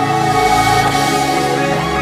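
Background music with held chords that change about once a second.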